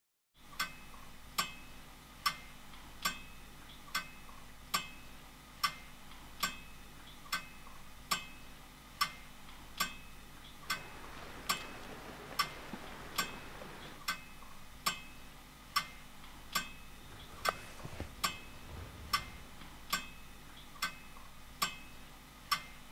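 Steady clock-like ticking, a little more than one tick a second, each tick short and slightly ringing. A soft rushing noise swells briefly in the middle.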